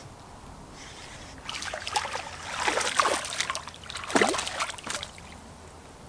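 A hooked largemouth bass splashing at the surface of a pond as it is reeled in and lifted out. The splashes come in several bursts, loudest about three and four seconds in.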